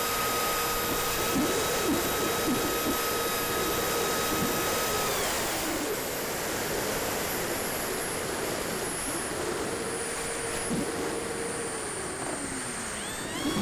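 Twin electric ducted fans of a FreeWing A-10 radio-control model jet whining in flight, over a rushing air noise. The whine holds a steady pitch, fades about five seconds in, returns around nine seconds and glides down near the end.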